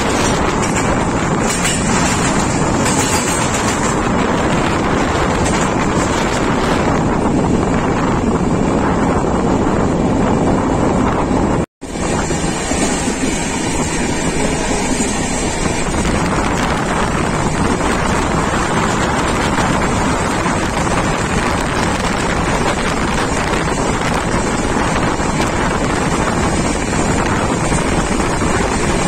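Steady wind noise on the microphone over the running rumble of a passenger express train at speed, heard from an open door or window. The sound cuts out for a moment about twelve seconds in, then carries on the same.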